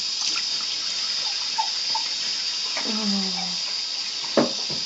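Water running steadily from a sink tap. A short low voice sound comes about three seconds in, and a single sharp knock near the end.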